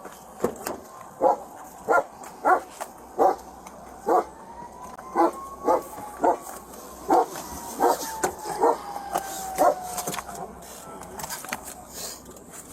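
A dog barking over and over in a steady string, about one bark every three-quarters of a second, stopping a couple of seconds before the end.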